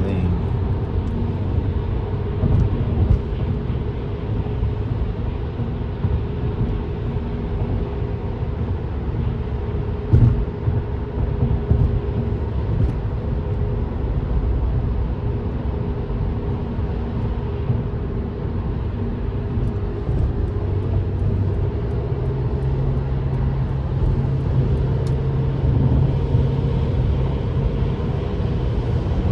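Car running steadily at highway speed on wet roads: a low engine drone under an even tyre hiss. There is a single thump about ten seconds in, and the engine note steps up a little higher about two-thirds of the way through.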